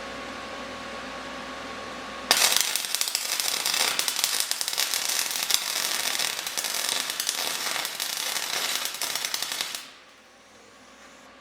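Electric arc welding on steel: the arc crackles and sputters loudly and steadily for about seven and a half seconds, starting abruptly about two seconds in and cutting off near the end. A steady hum runs before it starts.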